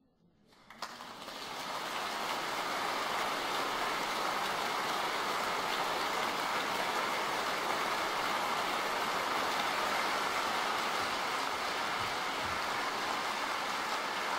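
Audience and orchestra applauding in a large concert hall, breaking out just under a second in after silence and swelling within a second or so into steady, dense clapping.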